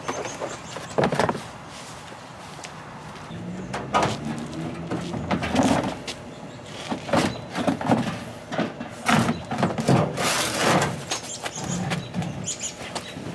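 Stiff plastic fender liner being wrestled out of a pickup's wheel well: irregular scrapes, flexing creaks and knocks of the plastic against the wheel arch and tyre.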